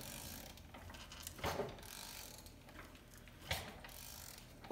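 The 2005 Volvo XC70's five-cylinder engine being turned over by hand with a wrench, rotating it two full revolutions to check that the new timing belt's timing marks still line up. Faint mechanical clicking and rattling, with two louder clunks about one and a half and three and a half seconds in.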